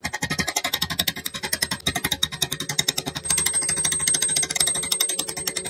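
Steel point scraping and chattering as it is twisted into pine, cutting a curled shaving: a fast, even run of ticks, with a thin high whine joining about three seconds in.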